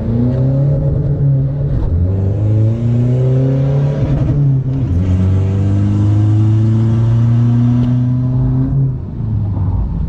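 Common-rail diesel engine heard from inside the cab on a full-throttle pull through a manual gearbox, testing a fresh ECU remap: the revs climb, drop at each upshift and climb again, three times.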